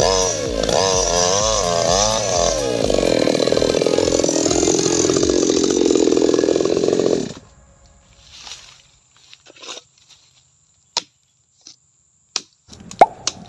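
Chainsaw cutting into a durian tree trunk, its engine note dipping and rising under load, then stopping suddenly about seven seconds in. A few sharp clicks and knocks follow.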